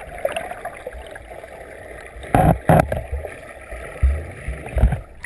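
Swimming-pool water heard underwater, rushing and churning from a swimmer's strokes. Two sharp, loud splashes come a little past halfway, and low thuds follow near the end.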